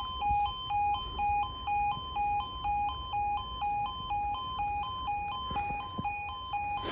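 Level crossing audible warning alarm sounding an even two-tone alternation, high and low notes swapping about twice a second, warning that a tram is approaching the crossing.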